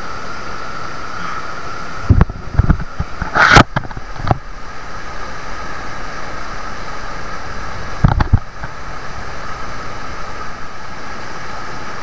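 Steady rushing of a small waterfall pouring down close to the microphone. Loud thumping splashes come about two to four seconds in and again around eight seconds.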